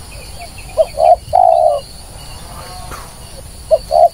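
Spotted dove (tekukur) calling its three-note coo, two short notes and a longer slightly falling one, about a second in and again starting near the end. Faint high chirps of a smaller bird sound underneath.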